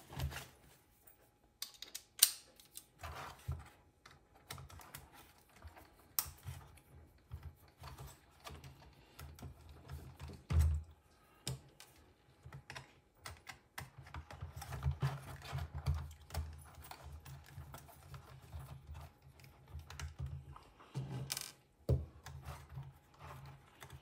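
Irregular small clicks and taps of a small screwdriver working in the plastic body of a 1/18-scale RC truck and of parts being handled on a metal workbench, as the front grille screws are undone. A few sharper knocks stand out, about two seconds in, near the middle and near the end.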